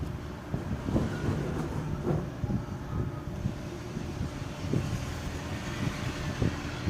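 A few light clicks and knocks of small box mod parts being handled, over a steady low rumble.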